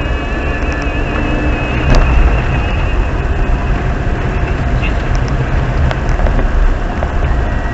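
A car driving along a road: the steady low rumble of engine and tyres, with a sharp click about two seconds in and another near six seconds.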